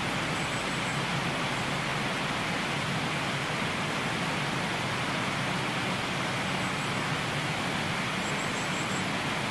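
Waterfall: a steady rush of water falling over rock, unchanging throughout.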